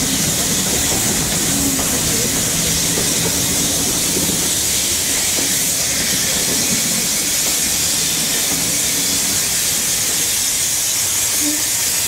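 Steady, loud hiss of steam from a pair of BR Standard Class 9F steam locomotives at the head of the train, heard from a carriage window as the train gets under way.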